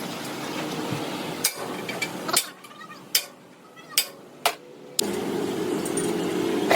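A series of sharp hammer blows on metal, spaced irregularly about a second apart, over steady workshop noise that drops away for a couple of seconds in the middle.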